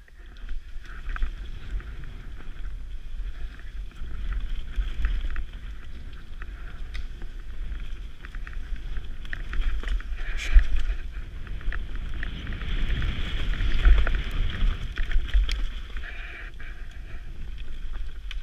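Mountain bike descending a dirt trail covered in dry leaves, filmed from a helmet camera: wind buffets the microphone in a continuous low rumble over the hiss of the tyres, with scattered sharp clicks and knocks from the bike over rough ground.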